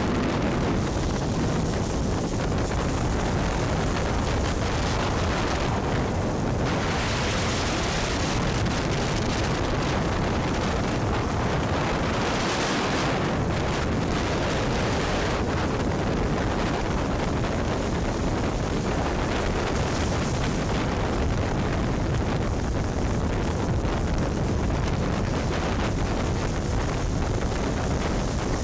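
Heavy North Sea surf breaking and washing up a shingle beach in a storm, with strong wind rumbling on the microphone. It makes a loud, steady roar with no pauses.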